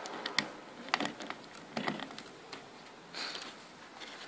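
Light handling sounds: a few small sharp clicks and rustles as wires with push-on spade connectors are worked onto the circuit board inside a plastic electric fence energiser housing, with a brief soft rustle about three seconds in.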